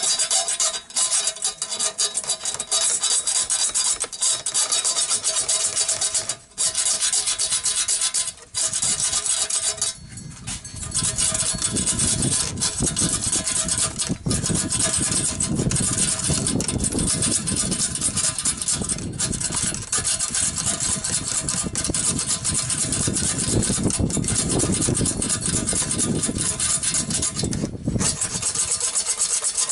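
Corded electric power tool spinning a cleaning tool inside a chrome motorcycle exhaust pipe, scouring the inside of the pipe clean. At first a steady motor whine over rubbing, then a louder, coarser scraping from about eleven seconds in, with a few brief stops.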